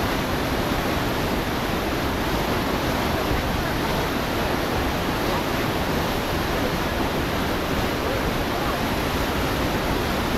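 Whitewater of the Potomac's Great Falls rushing steadily: an even, unbroken noise spread across all pitches.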